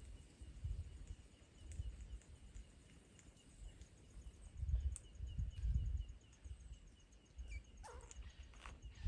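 Low, irregular rumbles of wind on the microphone over a faint, steady high insect trill, with one short falling bird call about eight seconds in.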